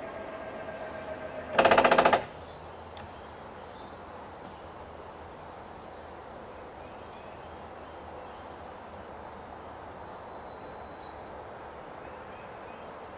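The electric motor of a battery-powered patient pool lift whines steadily and stops about a second in. Just after, a brief, loud rapid rattle lasts about half a second, then a steady quiet outdoor background.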